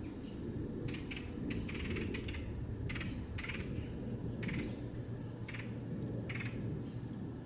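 Small songbirds calling: about a dozen short notes, some thin high chirps and some buzzy, rapidly pulsing calls, scattered over a steady low background hush.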